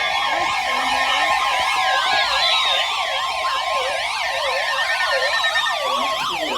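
Several electronic emergency alert tones sounding at once: fast, overlapping up-and-down wails with a few steady tones and slow falling glides underneath, the alarm for an incoming flash flood warning.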